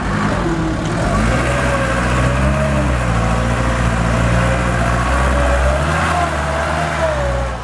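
Mitsubishi Canter diesel truck engine pulling under load across soft, rutted ground, its pitch rising and falling with the throttle and a wavering whine above it. The truck is blowing black exhaust smoke as it works.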